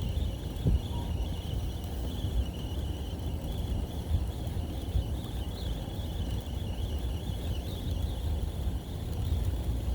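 Shimano 22 Stella 4000XG spinning reel being cranked while retrieving a vibration lure under line tension, with a rough, irregular knocking rattle ("kotokoto") from the reel. The owner takes this knocking as an abnormal noise, since it also comes through as vibration in the hand.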